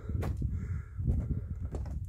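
Footsteps scuffing and clicking on rocky ground, a few sharp steps, over a steady low rumble of wind and handling on the microphone.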